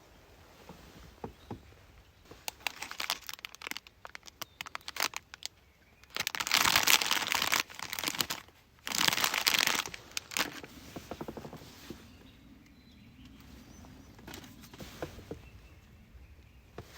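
Scattered clicks and crinkling as things are handled, then two loud bursts of hissing noise, about six and nine seconds in.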